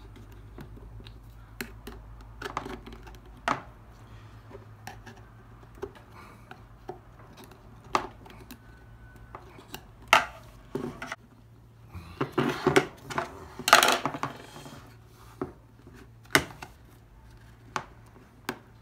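Small hand-work noises on a Husqvarna 236e chainsaw's clutch cover and chain brake assembly: a screwdriver tip and steel brake linkage clicking and clinking against the metal parts and plastic cover as the new brake band's pin is worked into place. Scattered sharp ticks, with a busier run of clinks about two thirds of the way through, over a low steady hum.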